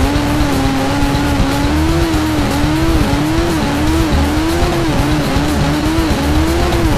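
Motorcycle engine held at high revs during a burnout, its pitch rising and dipping over and over as the rear tyre spins in place.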